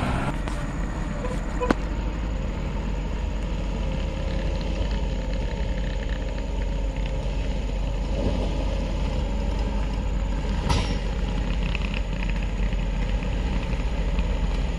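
Vehicle engines running steadily at a distance on a gravel hill road, with a sharp click about two seconds in and a brief knock about eleven seconds in.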